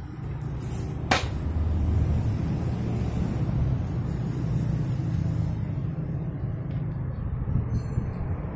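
Steady low engine rumble of a running motor vehicle, with a single sharp click about a second in.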